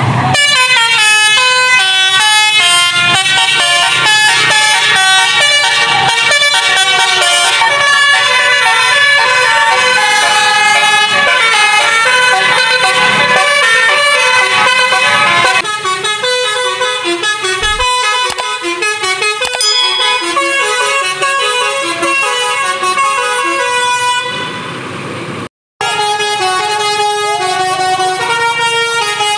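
Tour bus's 'basuri' telolet musical horn playing a rapid melody of stepped horn notes. The tune changes and gets a little quieter about halfway through, and it cuts out for a moment shortly before the end, then resumes.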